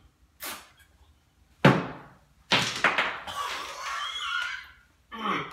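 A glass bottle set down on a wooden shelf with one sharp, loud thunk about a second and a half in. It is followed by about two seconds of rough, irregular noise.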